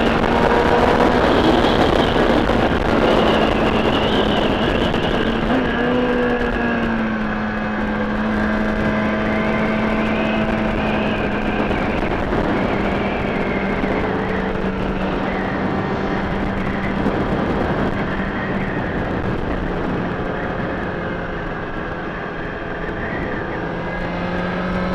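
Kawasaki ZX-6R inline-four sport bike cruising, heard from the rider, with heavy wind rush over the helmet or camera microphone and a steady engine drone beneath it. The engine note eases down a little in steps as the bike slows slightly, then picks up again near the end.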